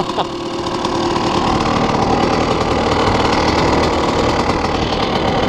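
KTM enduro dirt bike engine idling steadily.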